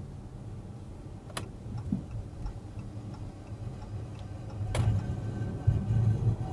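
Low road rumble inside a moving car, broken by two sharp clicks about three seconds apart, the first about a second and a half in, and a few faint ticks. This is the odd scratching noise the driver traces to the passenger-side front wheel.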